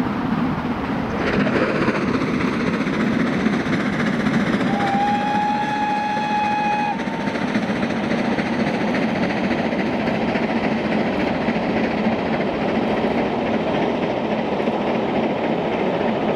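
Steam locomotive hauling a passenger train past at speed, a steady rumble of the engine and coaches on the rails, with one whistle blast about two seconds long around five seconds in.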